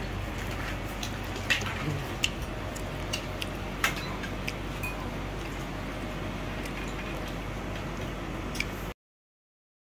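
Chopsticks and spoons clicking against ceramic bowls a few times over a steady low room hum, with no talk. The sound cuts off abruptly near the end.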